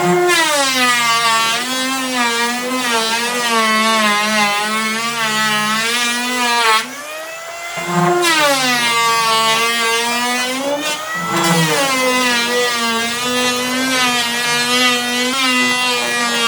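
Electric power tool motor running with a steady whine. Its pitch sinks and settles as it takes load near the start, again about eight seconds in and once more around eleven seconds, after a brief dip in loudness just before the eight-second mark.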